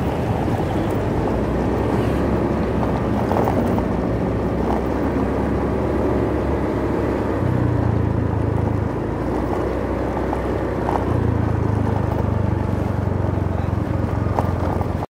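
Motorcycle being ridden, its engine running under wind rush on the microphone. The engine's low hum steps up about halfway through and again later, then the sound cuts off abruptly near the end.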